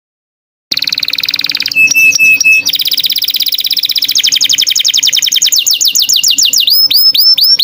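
Recorded songbird song that starts suddenly about a second in, loud and continuous: fast trills of rapidly repeated rising notes, a few clear level whistles, then a run of hooked, falling notes at about three a second.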